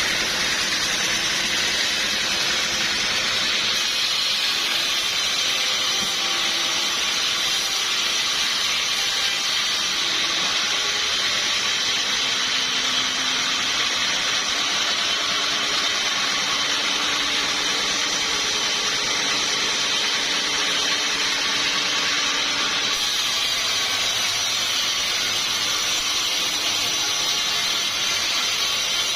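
Sawmill saw running steadily through a log, a continuous hissing whine with a low hum that shifts in pitch now and then.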